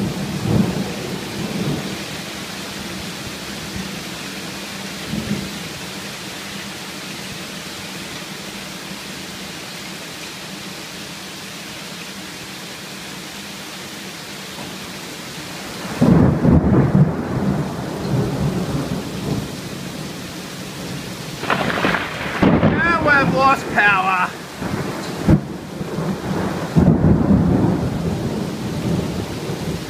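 Thunderstorm: rain pouring steadily, then sudden loud rumbling thunder about halfway through and again near the end.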